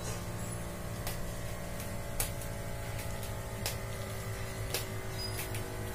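Small electric air pump of a Sinocare BA-823 digital blood pressure monitor humming steadily as it inflates the arm cuff during a measurement, with a few faint, irregular ticks.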